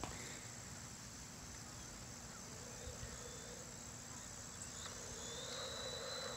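Faint high-pitched whine of a toy RC car's small electric motor over a low background hiss. The whine comes in about five seconds in and grows louder as the car approaches.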